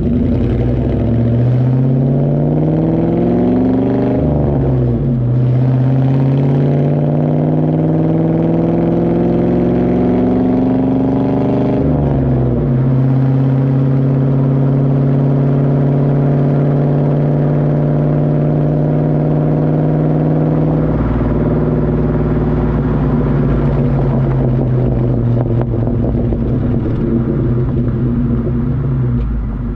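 A 99–04 Mustang GT's 4.6-litre V8 exhaust heard at the tailpipe while driving, through a DNA Motoring cat-back with a JBA off-road H-pipe. The engine note rises under acceleration, drops about four seconds in and again about twelve seconds in as at gear changes, holds steady at cruise, then falls slowly as the car eases off.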